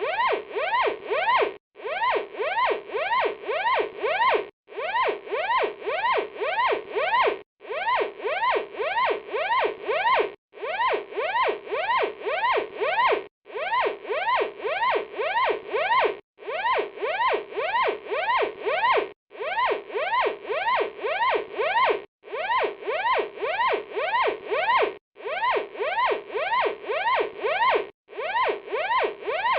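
Electronic fire alarm sounding: short rising whoops repeat about three times a second, in bursts of about three seconds with a brief break between bursts.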